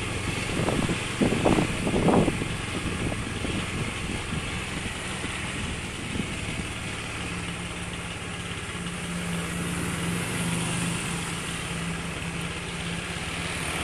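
Small motorbike engine running steadily at low road speed, a low even hum, with a few gusts of wind noise on the microphone in the first two seconds.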